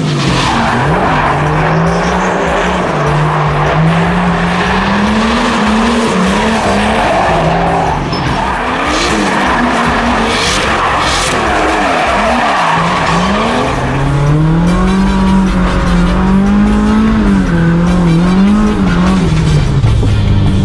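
Car drifting on dry asphalt. Its engine is held at high revs, the pitch rising and falling as the throttle is worked, over the squeal and hiss of sliding tyres.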